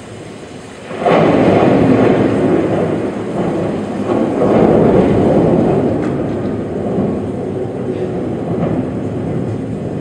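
Audience cheering and applauding in a large, echoing arena, starting suddenly about a second in, swelling again near the middle and then slowly easing.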